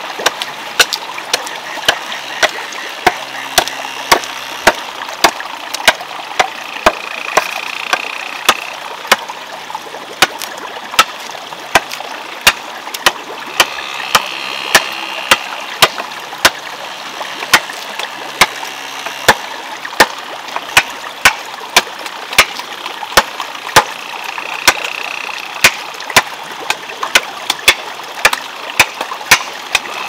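Bamboo waterwheel turning in running water: steady splashing with sharp wooden clacks at an even beat, about three every two seconds, and a sound pattern that comes round again every five or six seconds as the wheel turns.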